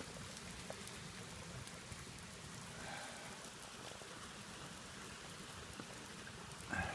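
A small campfire of damp timber burning, giving a faint steady hiss with scattered small crackles.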